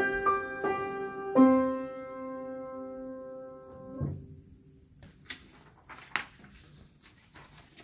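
Upright piano played: a few quick notes, then a last chord held for about two and a half seconds and released with a soft thump about four seconds in. After that, only faint clicks and rustles.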